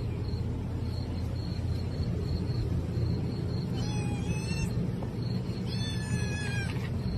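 A cat meowing twice, once about four seconds in and again about two seconds later, each call a short pitched cry. A steady low rumble and a faint, evenly repeating high chirping run underneath.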